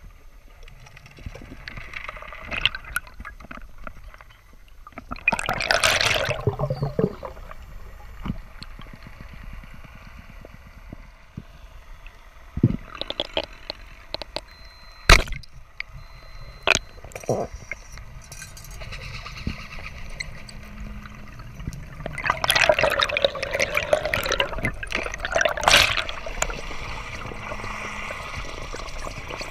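Underwater water noise around a freediver's camera: a steady rush with two longer bursts of bubbling, about five seconds in and again near the end, and a few sharp clicks in the middle.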